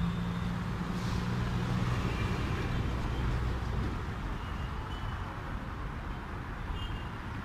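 Street traffic: a motor vehicle's engine drone, strongest in the first three seconds or so, then easing into the steady rumble of passing road traffic.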